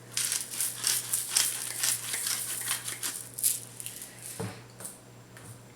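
Pepper being dispensed over a pot of soup: a quick run of dry, crackly rattling that thins out after about three seconds, followed by a single knock.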